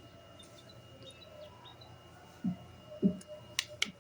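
Faint bird chirps in the background, with two dull thumps a little past halfway and a quick run of sharp clicks near the end.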